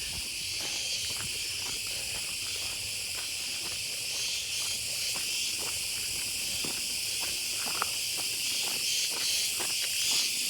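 Dense, steady chorus of insects, a high-pitched shrill hiss, with faint irregular crunches of footsteps on a gravel road underneath.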